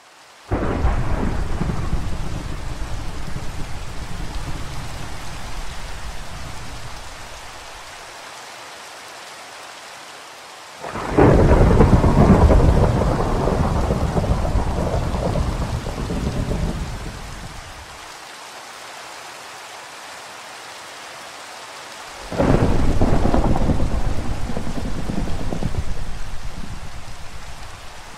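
Steady rain with three long rolls of thunder, each fading over several seconds: the first about half a second in, the second about eleven seconds in, the third about twenty-two seconds in.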